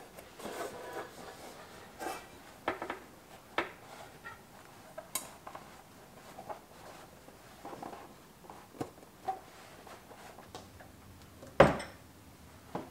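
Handling noise as a kitchen paper towel roll is fitted with a plastic piece and put on its holder: a string of light clicks and taps, then one sharp, louder knock near the end as the roll goes onto the holder under the cabinet.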